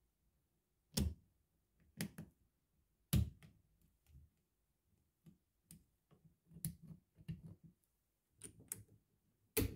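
Small metal parts of a DeWalt impact driver's bit holder clicking and scraping as a steel pick works a ring onto the quick-release collar. Three sharp clicks about a second apart, then softer ticks and rattles, and one loud click near the end.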